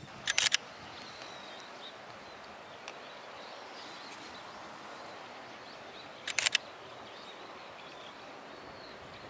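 Steady outdoor background hiss with faint bird chirps. It is broken twice by a short burst of rapid sharp clicks, about half a second in and again about six seconds in.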